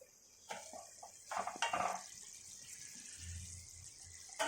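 Covered pot of gravy simmering on the stove, a steady soft hiss, with a few light clinks in the first two seconds and a sudden louder sound at the very end.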